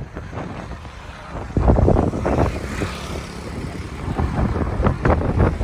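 Wind buffeting the phone's microphone in irregular rumbling gusts, louder from about a second and a half in.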